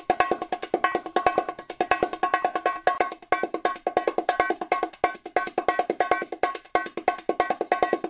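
Music built on fast, repeated percussive notes with a clear pitch, in a steady quick rhythm with a few short breaks.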